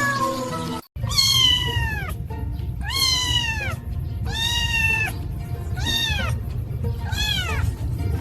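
A cat meowing over and over, about six drawn-out meows, each starting high and sliding down in pitch, over background music.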